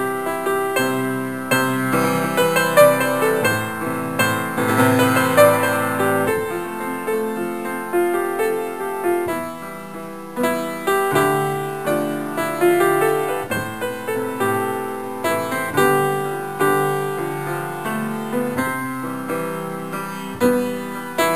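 Background piano music: a melody of struck notes over chords, each note striking and fading.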